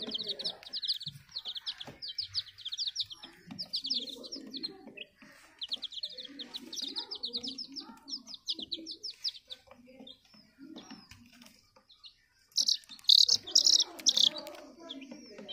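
Domestic chicken chicks peeping in quick runs of short, high notes. The peeping thins out for a moment, then comes back louder in a brief burst near the end.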